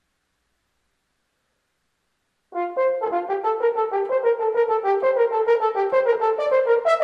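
French horn played solo: a quick run of short, leaping hunting-call notes that starts suddenly about two and a half seconds in and carries on without a break.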